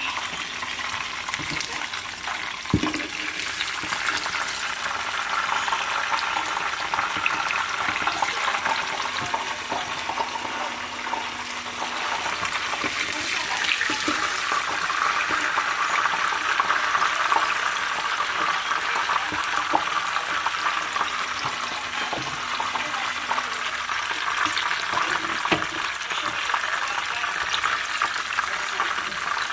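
Pieces of hake frying in hot oil in a pan: a steady sizzle with many small crackles and spits.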